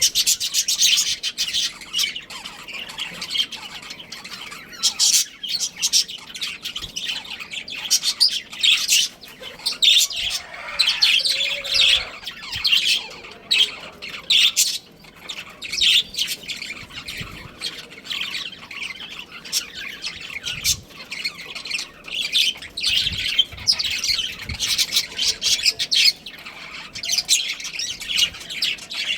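Budgerigars chattering and chirping, many quick high calls overlapping without a break, with occasional harsher squawks.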